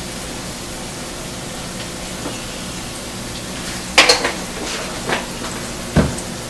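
Diced onions sizzling steadily in butter in a small skillet. A sharp clack comes about four seconds in and a low thump near the end, as kitchen items are handled and set down.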